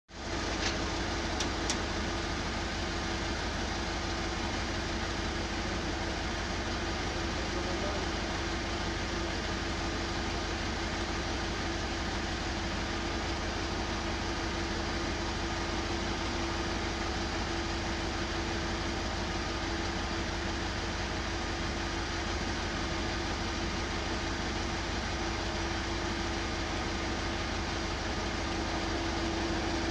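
Truck-mounted water-well drilling rig running steadily: an engine drone with a constant whine over it. A couple of sharp clicks sound about a second in.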